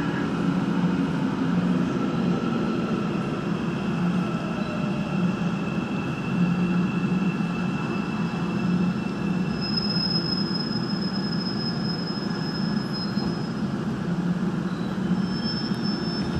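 Busan Metro Line 3 train braking into a station and coming to a stop, heard inside the car: steady running noise with a thin high squeal from about ten seconds in.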